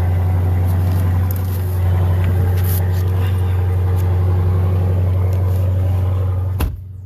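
Dodge Challenger's engine running at a steady, deep idle. Near the end a car door thumps shut and the engine sound becomes much quieter and muffled.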